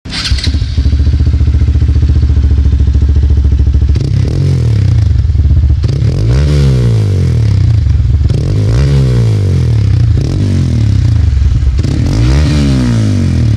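Hero Xpulse 200's single-cylinder engine idling steadily, then revved with three quick throttle blips, each climbing in pitch and dropping back to idle, about two and a half seconds apart.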